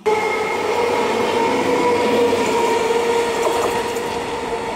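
EMU electric local trains running at speed on parallel tracks: a loud, steady rumble of wheels on rail, with steady humming tones over it, easing slightly toward the end.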